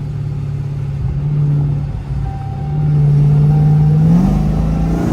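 Supercharged Hemi V8 of a Dodge Hellcat breathing through catless mid pipes, droning at a steady cruise, then the throttle opens: it gets louder about three seconds in and its pitch rises a little after four seconds into a rougher, fuller note. The exhaust has a leak the owner has noted.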